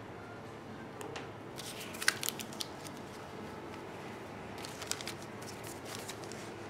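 Rustling and handling of a trench coat being put on, in two short flurries about two seconds in and again near five seconds, over a steady room hum.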